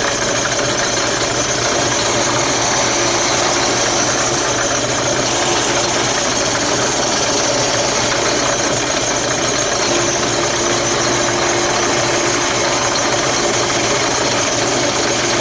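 Drill press spinning a small sanding drum while the edge of a wooden template is pressed against it: a steady motor hum under the continuous rasp of abrasive grinding wood.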